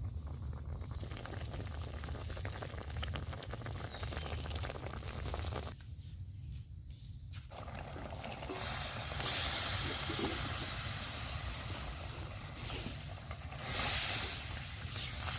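Wood fire burning with a low rumble and light crackle, then balut eggs dropped into a wok of tomato broth over the fire: a loud, steady sizzling hiss from about nine seconds in, swelling again near the end as they are stirred.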